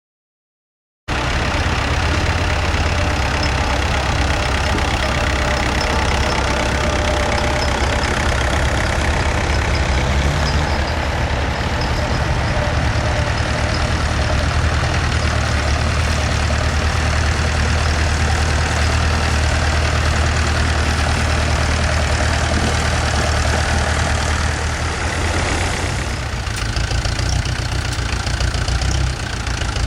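Vintage tractor engine idling steadily close by, a low, even hum that starts abruptly about a second in.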